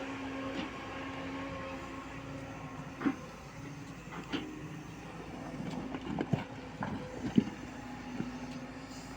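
JCB 140 excavator's diesel engine running steadily, with a string of sharp metallic clanks from about three seconds in. The loudest clank comes about seven and a half seconds in.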